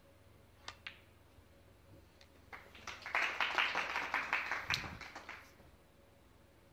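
Two sharp clicks of snooker balls being struck, then a short burst of audience applause lasting about three seconds.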